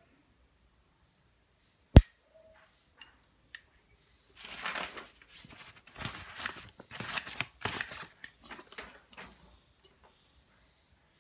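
Japanese blue-steel butterfly-handle scissors cutting a sheet of paper in a quick run of snips from about four to nine seconds in. Before that comes one loud sharp click about two seconds in, then two smaller clicks.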